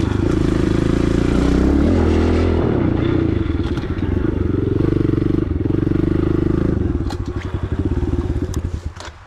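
Pit bike engine running as the bike is ridden. About seven seconds in the steady note breaks into slower, separate pulses as the engine drops toward idle, and it fades near the end.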